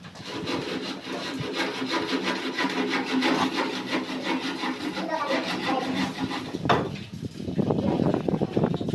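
Rapid rhythmic scraping strokes with a steady low hum beneath them, then a single sharp knock about seven seconds in, followed by lower, rougher scraping.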